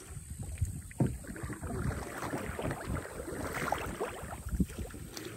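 Water splashing and sloshing around a plastic kayak, with small irregular knocks and clicks against the hull, as a hooked fish is pulled to the kayak's side.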